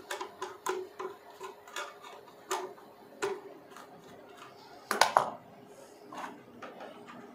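Screwdriver clicking and scraping on the metal screw terminals of a car amplifier while a speaker wire is fastened: irregular light ticks, with a louder pair of clicks about five seconds in.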